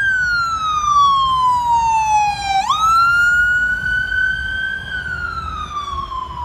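Police car siren wailing: its pitch slides slowly down, jumps back up about two and a half seconds in, then slides down again, over a low rumble of traffic.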